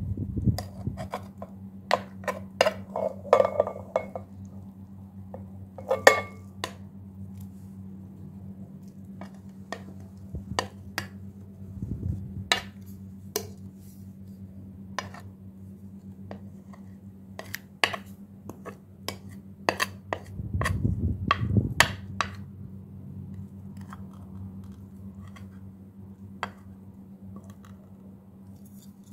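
Scattered clinks, knocks and scrapes of a spoon and a porcelain plate against a glass bowl as grated vegetables are pushed off the plate, over a steady low hum.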